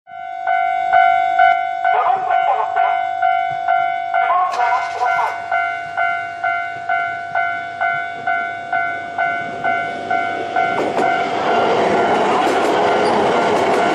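Japanese level-crossing electronic warning bell ringing about twice a second, with the crossing's recorded voice announcement speaking over it in the first few seconds. From about 11 seconds in, an E3 series Yamagata Shinkansen train passes with a rising rush of wheel and running noise that drowns the bell.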